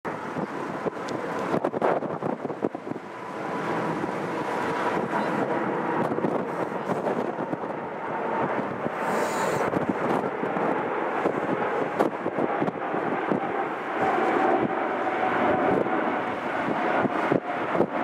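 Boeing 747 freighter's four jet engines at go-around power as the jet climbs away overhead after an aborted landing: a steady, dense rumble with a faint whine. Gusty wind buffets the microphone, crackling throughout.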